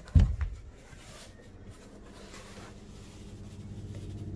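A thump just after the start, then soft rubbing and scuffing as a tall rubber hunting boot is pulled onto a foot. A low engine hum builds toward the end.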